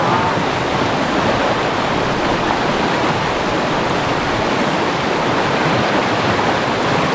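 Loud, steady rush of fast-flowing river water over rapids.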